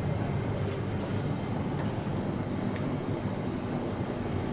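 Steady low rumbling background noise with a few faint light clicks, without speech.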